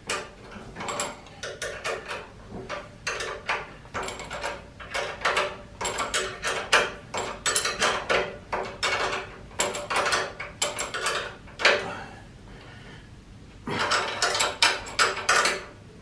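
Hand wrench tightening the bolts of a go-kart's rear axle bearing: quick runs of metallic clicking, with a brief pause about twelve seconds in.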